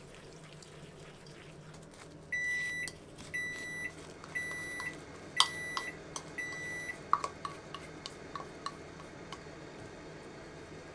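Electronic beeper of a kitchen appliance sounding five evenly spaced beeps, each about half a second long and about a second apart, followed by a few light clicks.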